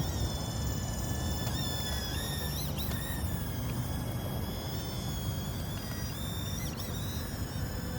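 Small toy quadcopter drone's motors and propellers whining steadily, the high pitch dipping and rising as the throttle changes a couple of times, over a low rumble.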